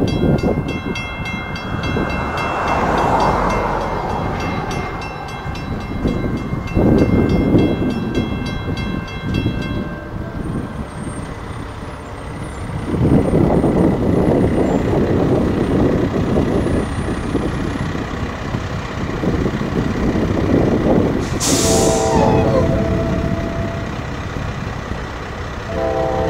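Railroad crossing warning bell ringing in a steady, even rhythm while the crossing lights flash and the gates lower, then falling silent about ten seconds in. An approaching NJ Transit commuter train sounds its horn near the end, a short blast about 22 seconds in and another starting about 26 seconds in, over a steady rumble.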